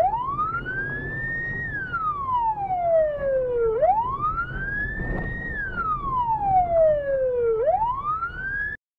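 Police siren on a slow wail, its pitch rising for about a second and a half and then falling for about two seconds, giving two full cycles and a third rise. A low road rumble runs underneath, and it cuts off suddenly near the end.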